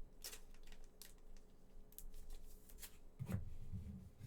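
Trading cards being slid and flipped through the hands, a string of short swishes and clicks, with a louder handling knock a little over three seconds in.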